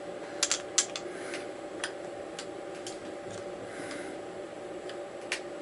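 Scattered sharp light clicks and taps as the metal milling fixture is handled and positioned under the cutter: a quick cluster about half a second in, a few single ones after, and one more near the end, over a steady machine hum.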